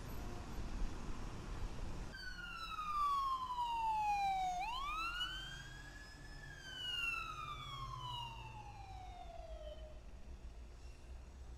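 A siren wailing: about two seconds in its pitch slides slowly down, then sweeps quickly back up, holds briefly, and slides down again for several seconds, fading near the end.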